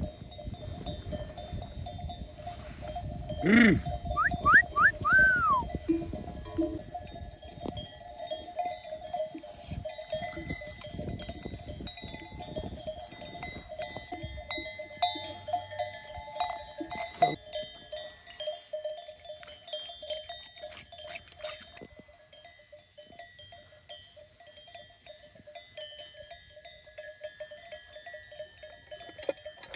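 Bells on a grazing flock of sheep clanking continuously, with one loud sheep bleat about three and a half seconds in and a few shorter calls just after.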